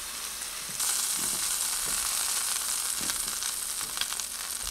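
Pork fillets sizzling in hot oil in a frying pan, the sizzle getting louder about a second in. A few light clicks of metal tongs lifting the seared fillets out of the pan.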